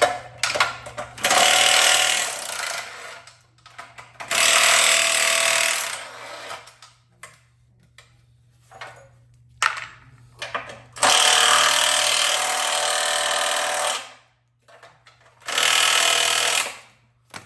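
Power driver running in four bursts of one to three seconds, backing out the tight bolts of an airless paint sprayer's frame, with small clicks and handling noise in the pauses between bursts.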